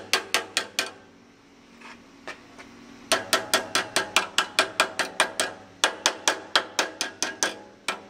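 A hammer striking a Honda Del Sol's exhaust pipe in quick, ringing metal blows, about four or five a second. There is a short run at the start, a pause of about two seconds, then a steady run from about three seconds in, broken once briefly near six seconds.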